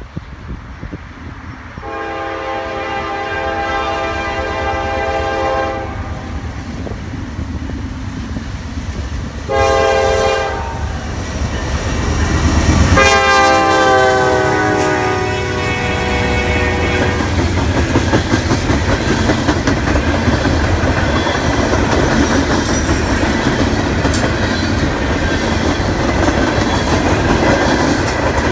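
Norfolk Southern freight train led by GE Dash 9-44CW locomotives sounding its air horn: a long blast, a short one, then another long blast that drops in pitch as the locomotive passes. The locomotives and hopper cars then roll by with wheels clicking over the rail joints.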